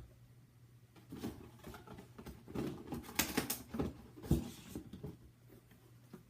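Handling noise from sneakers and their box: irregular rustling and light taps, busiest in the middle, with a dull thump a little after four seconds in, over a steady low hum.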